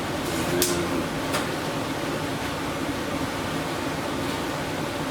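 Steady fan-like background noise, with two short, light clicks about half a second and a second and a half in.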